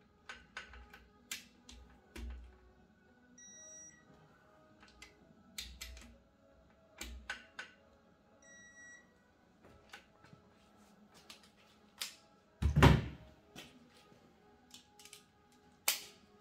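Scattered clicks and light knocks of metal tools and engine parts being handled during engine assembly, with one loud thump about two-thirds of the way through and a sharp knock near the end.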